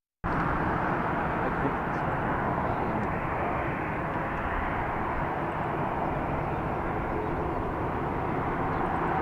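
Jet engines of an Airbus A321-211, CFM56 turbofans, running as a steady rumbling roar that grows slightly louder near the end.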